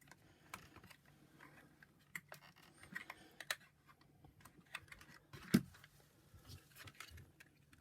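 Scattered light clicks and taps of small plastic parts being handled, with one louder knock about five and a half seconds in.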